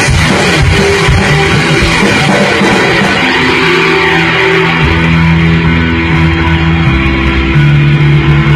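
Live rock band playing loudly with electric guitar, bass and drums; the drum hits thin out after about three seconds, leaving held guitar and bass notes ringing.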